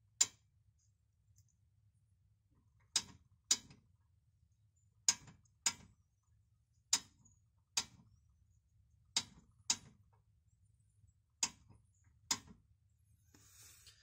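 Eleven sharp clicks, mostly in pairs about half a second apart, with a pause of one to two seconds between pairs.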